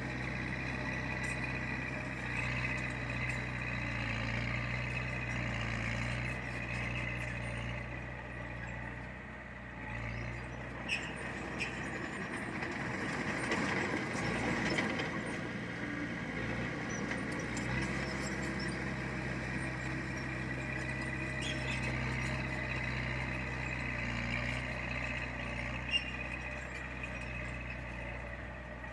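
Diesel engine of heavy earthmoving machinery running steadily, with a high squealing whine over it. Around the middle the engine hum gives way to a rougher, noisier stretch, with a couple of short metal knocks.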